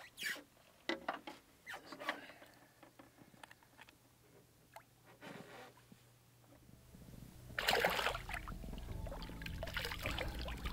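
Water splashing and sloshing against the side of a boat as a redfish is held in the shallows and released, with a louder splash about three-quarters of the way through as the fish kicks away. Background music fades in during the second half.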